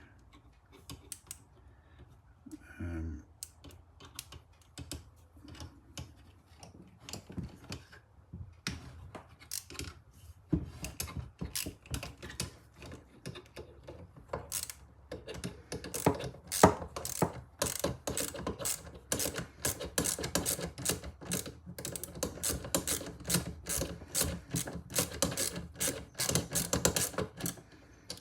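Small ratchet wrench clicking as a bolt on a British Seagull outboard is worked loose: a few scattered clicks at first, then steady rapid clicking in short strokes from about ten seconds in.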